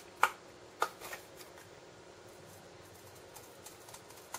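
Scissors snipping through thin cardboard with a taped paper guide: two sharp snips within the first second and a fainter one just after.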